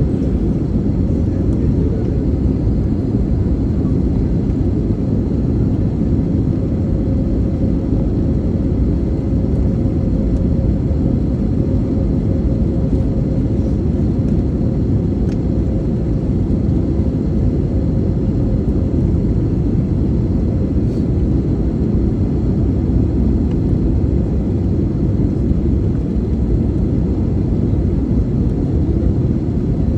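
Steady low rumble of engine and airflow noise inside an airliner's cabin, with a faint steady hum that fades about two thirds of the way through.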